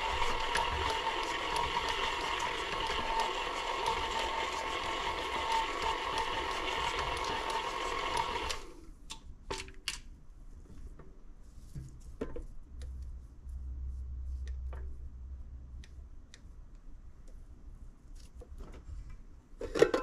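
KitchenAid tilt-head stand mixer running steadily with a motor whine, beating softened butter and sugars until fluffy, then switched off abruptly about a third of the way in. After that come scattered light clicks and knocks as the mixer head is tilted up and the steel bowl is handled, with one sharp clunk near the end.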